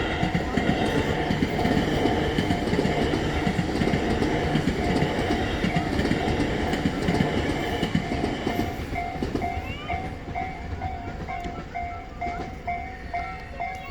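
A Tobu Railway train passing over a level crossing, its wheels clattering on the rails, while the crossing's warning bell rings at about two dings a second. The train noise fades about eight seconds in, leaving the bell ringing.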